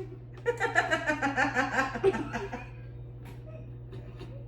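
Young women laughing: a burst of rapid giggling lasting about two seconds, starting about half a second in, then dying away.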